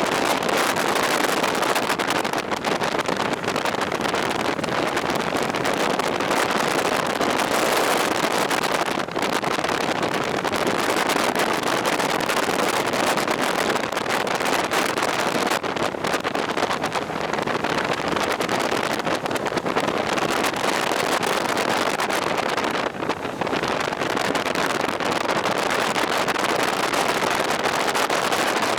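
Steady rush of wind on the microphone of a moving two-wheeled vehicle, with no engine note standing out, briefly easing about twenty-three seconds in.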